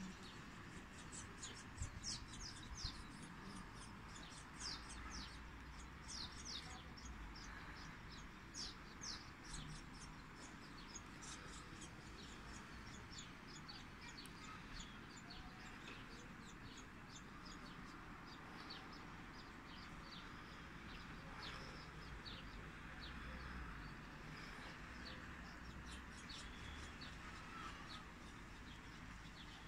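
Small birds chirping outdoors in quick runs of short, high notes, thickest in the first ten seconds and sparser after, over a faint steady background hiss.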